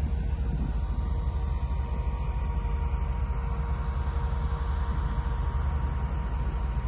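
Heavy tracked armoured vehicles' engines idling: a steady deep rumble with a faint steady whine over it.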